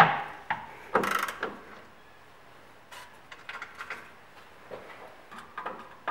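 Hand tool working an exhaust gas temperature sensor and fittings on the exhaust pipe: a few sharp metallic clicks and knocks, loudest in the first second and a half, then lighter scattered ticks.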